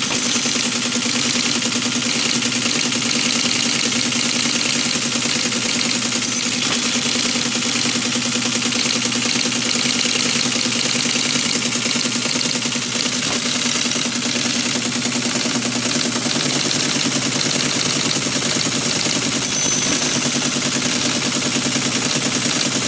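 Teletype Model 33 KSR terminal running, giving a steady motor hum with a constant mechanical whir from its drive mechanism.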